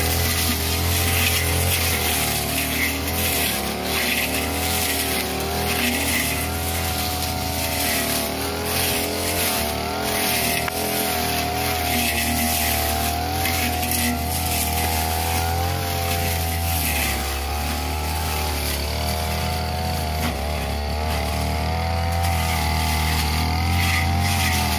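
A '328' two-stroke backpack brush cutter running at high speed as its blade cuts through tall, dense grass and weeds. Its engine pitch wavers up and down as the load changes.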